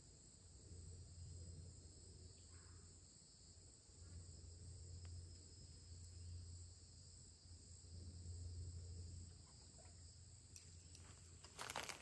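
Near silence with a faint, steady chorus of insects, and a few faint clicks near the end.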